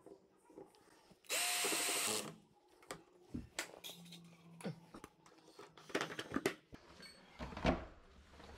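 Ryobi ONE+ cordless drill driving a screw home, one steady whir lasting about a second. Light clicks and knocks follow.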